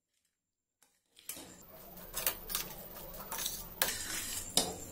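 A steel spatula scrapes and clinks against a stainless steel kadai while stirring wet poha and jaggery syrup. It starts about a second in, after near silence, with a few sharper knocks of metal on metal.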